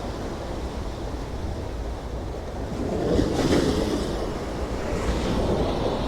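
Sea waves washing in, with one surge growing louder about three seconds in and another near the end, over a low rumble of wind on the microphone.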